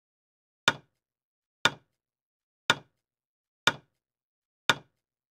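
Countdown timer sound effect ticking five times, one sharp tick a second.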